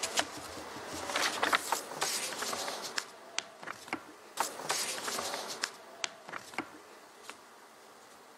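Scattered sharp clicks and bursts of rustling over a steady hiss, dying away near the end.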